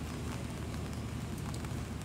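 Wind and rain: a steady low rumble with faint scattered crackles.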